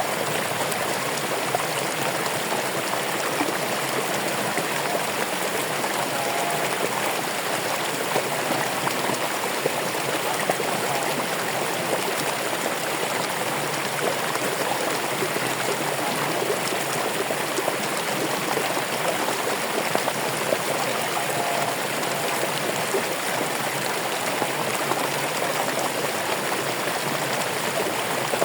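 Running water of a stream, a steady even rush and babble with no breaks.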